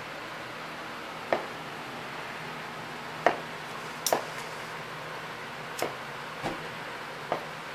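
Steady room hum with about six short, sharp clicks scattered a second or two apart.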